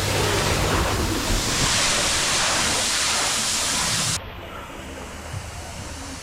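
Steady rush of splashing water that cuts off sharply about four seconds in, leaving a quieter hiss.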